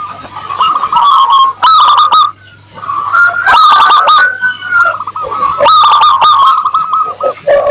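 Perkutut (zebra doves) cooing in repeated rolling phrases of quick notes, loud and rising to three strong bursts; at times two birds' coos overlap at slightly different pitches.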